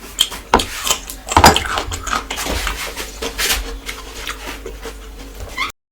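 Close-miked eating sounds: chewing and food being worked on a plate, with irregular sharp clicks and light knocks on the dish. The sound cuts off suddenly near the end.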